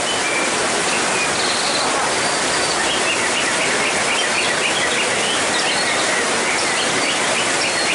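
White-rumped shama singing a string of quick, varied whistled notes, busier from about three seconds in, over the steady hiss of heavy rain.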